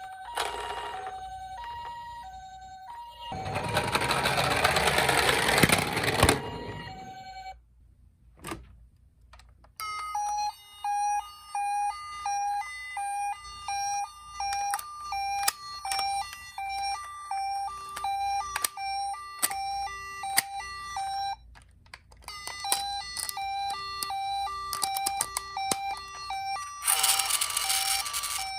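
Toy ambulance minicars' built-in electronic sirens. First a two-tone hi-lo ambulance siren alternates between a higher and a lower pitch. After a few seconds of loud noise and a short quiet spell, another siren beeps in a fast, clicky repeating pattern that pauses briefly and resumes, with a short burst of loud noise near the end.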